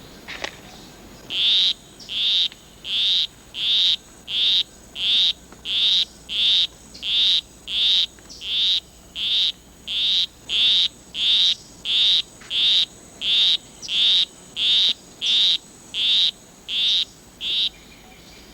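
Male poison arrow frog giving his monotonous courtship song: a steady series of short, high-pitched calls, about one every 0.7 seconds, beginning a second or so in and stopping near the end.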